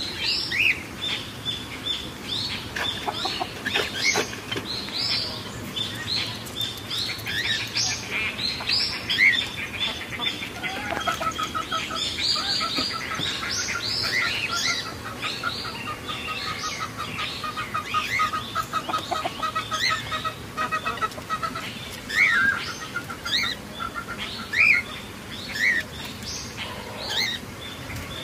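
Many caged aviary birds, cockatiels among them, chirping and calling over one another in short overlapping calls. Through the middle stretch a fast repeated chatter runs underneath.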